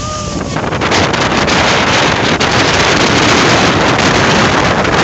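Storm-force wind blasting across the microphone over rough sea surf, a loud, continuous rushing noise that swells about a second in.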